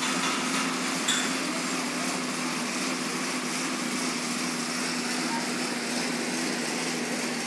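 Air bike (Assault Bike) fan wheel whirring steadily with a constant hum while it is pedalled and pushed hard.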